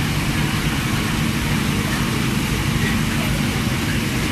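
Cakoi dough sticks deep-frying in a large fryer of hot oil, a steady sizzle over a constant low mechanical hum.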